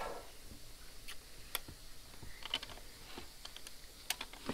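Plastic number wheels on a toy time bomb being turned by hand to set the timer, giving faint, scattered clicks at uneven intervals.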